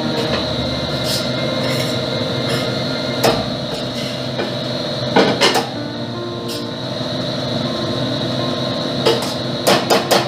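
Sharp metallic knocks and clinks of kitchenware being handled at a stainless pot: one about three seconds in, two around five seconds, and a quick cluster near the end. Underneath runs the steady hum of the kitchen's range-hood extractor fan.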